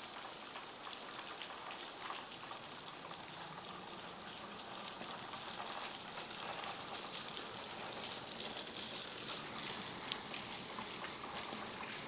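Heavy rain pouring, as a steady hiss with scattered drips and splashes. It is running off the apartment rooftops, which makes it sound heavier than it is. One sharp tap about ten seconds in.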